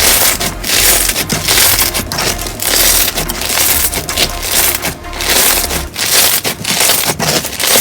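Crunchy slime being squeezed and pressed by hand: a dense crackling and popping in repeated surges.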